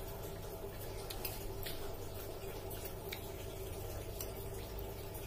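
Someone eating with a metal spoon from a plate: a few scattered soft clicks and ticks of the spoon and mouth, over a steady low hum.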